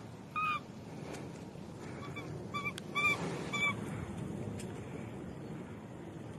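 Baby macaque giving short, high-pitched squeaking calls: one about half a second in, then a quick run of four between about two and four seconds in, over a low steady background noise.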